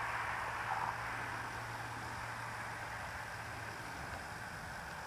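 Steady hiss with a low hum underneath; the hum stops about three and a half seconds in.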